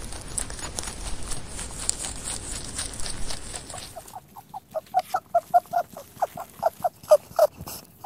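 Rabbit sounds: a dense patter of small crisp clicks of a rabbit chewing for about the first half. Then a quick run of short squeaky grunts follows, about five a second, getting louder toward the end.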